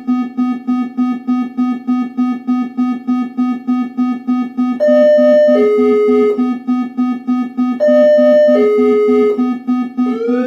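Synthesized emergency alert alarm tone that starts suddenly: a low electronic buzz pulsing about four times a second. After about five seconds a louder falling two-note tone joins it and repeats a few seconds later. Rising siren-like sweeps start near the end.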